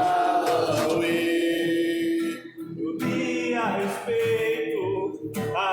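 A man singing a capoeira song in Portuguese with long held notes, to acoustic guitar strumming.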